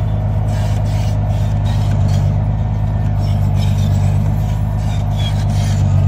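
Crawler bulldozer's diesel engine running steadily with a low, even drone as the dozer crawls along a dirt track.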